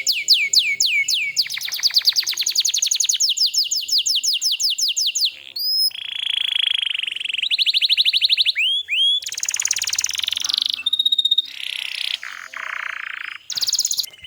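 Domestic canary singing a long, fast song made of trills of quickly repeated sweeping notes, switching to a new phrase every second or two. The song stops suddenly near the end.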